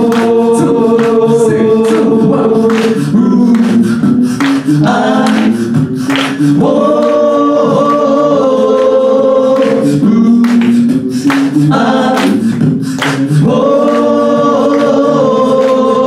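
A cappella group singing: several voices holding sustained chords that shift every few seconds, over a steady beat of sharp percussive hits.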